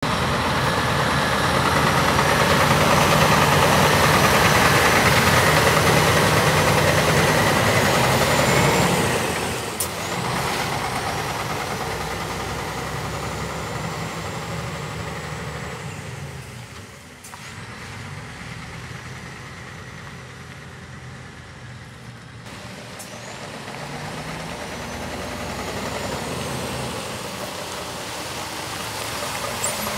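Scania 470 hooklift truck's six-cylinder diesel engine running as the truck drives away, loudest for the first nine seconds and then fading with distance. It grows louder again near the end as the truck comes back.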